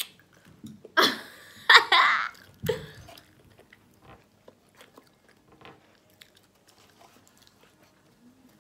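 A loud burst of laughter about a second in, then close-up chewing of pepperoni pizza: faint wet mouth clicks and smacks through the rest.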